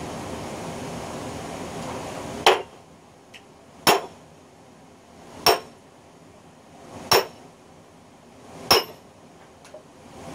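Sledgehammer striking a steel splitting wedge driven into an oak log: five sharp blows with a brief metallic ring, about a second and a half apart, starting a couple of seconds in.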